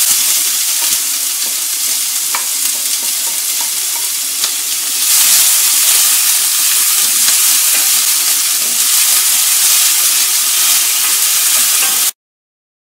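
Chopped onion sizzling in hot coconut oil in a stainless steel pan while being stirred with a spatula. The sizzle gets louder about five seconds in, then cuts off abruptly near the end.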